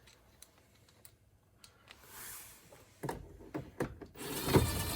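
A few light clicks and knocks of a bolt and tool being handled at the car door, then about four seconds in a cordless impact gun starts up and runs steadily as a door bolt is driven in.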